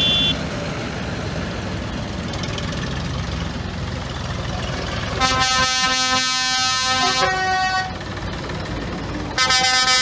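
Tractor engines running as a convoy of tractors drives slowly past. A loud horn sounds for about two and a half seconds midway, its pitch shifting just before it stops, and a second horn blast starts near the end.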